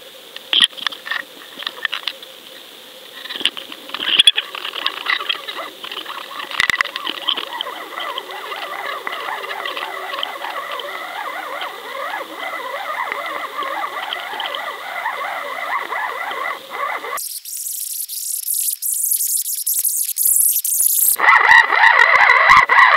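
Underwater noise picked up by a camera on a fishing rig: scattered sharp clicks, then a dense crackle with faint chirping that grows louder. About 17 seconds in it changes suddenly to a high hiss, and about 21 seconds in to a louder warbling.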